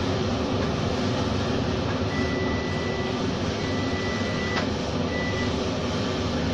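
Steady hum and rush of a kitchen range hood fan running, with a single light clink about halfway through as the pot's lid is handled.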